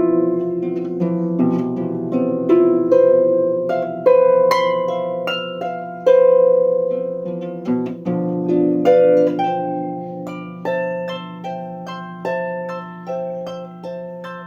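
Improvised melody on a plucked string instrument with a harp-like tone. Single notes ring and fade over a low tone held underneath, and from about ten seconds in the notes come in a quicker, even run of roughly two a second.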